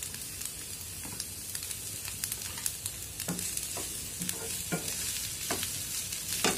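Vegetables sizzling as they stir-fry in a non-stick frying pan, with a wooden spatula stirring and knocking against the pan several times in the second half.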